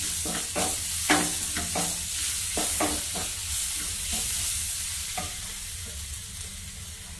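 Wooden spatula stirring and scraping sliced shallots and spice powders around a nonstick frying pan, a quick run of strokes that thins out after about three seconds, over a steady sizzle of the mixture frying in coconut oil.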